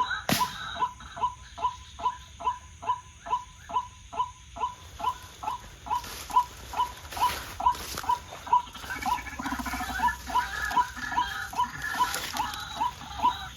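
A white-breasted waterhen's call repeated monotonously, about two and a half short notes a second, each dropping slightly in pitch. A single sharp click comes just after the start.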